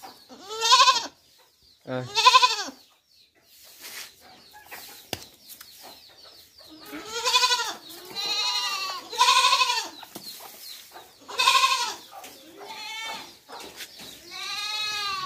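Young goat kid bleating repeatedly, about eight separate baa calls with short pauses between them, some loud and some fainter.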